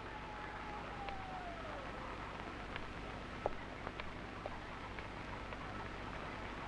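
Steady low hiss and hum of a film soundtrack. A faint falling tone runs through the first two seconds. From about three seconds in there are a few soft taps, light footsteps as a woman walks across a room.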